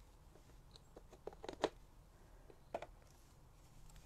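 A few light taps and clicks, a small cluster about a second and a half in and one more near three seconds: a rubber stamp being inked and pressed onto card in a Stamparatus stamping platform.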